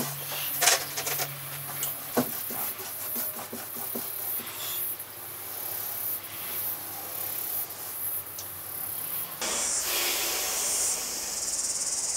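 Paintbrush bristles scrubbing and swishing across canvas in repeated strokes, with a few light taps and clicks. Near the end a steady high hiss comes in.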